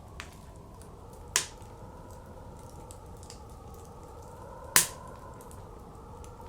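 Wood fire crackling in a fireplace, with two sharp loud pops, one about a second and a half in and one about three seconds later, over a steady blizzard wind.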